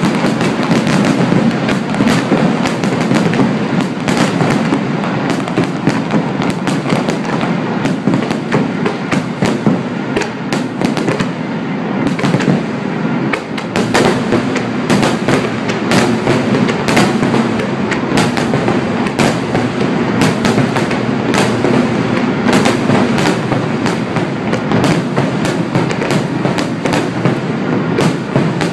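A fireworks finale-style barrage: many aerial shells bursting at once, a dense, unbroken run of bangs, pops and crackles.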